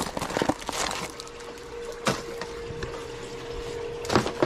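Plastic clicks and rustles of packaged minnow lures being handled and hung on display hooks, sharpest about two seconds in and near the end, over a steady trickle of water and a faint even hum.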